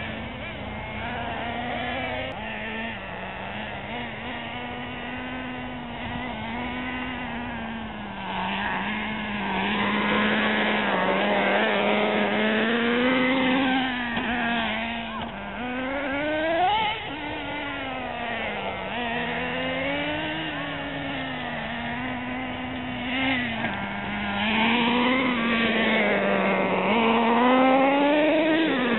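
Several radio-controlled model cars running, their small motors buzzing and repeatedly rising and falling in pitch as they accelerate and slow.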